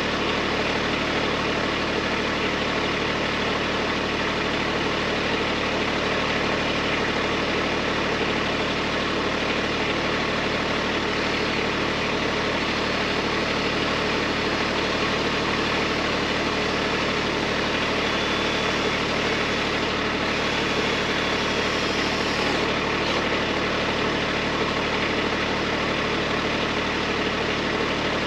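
Kubota B2301 tractor's three-cylinder diesel engine running steadily as it powers the BH70 backhoe.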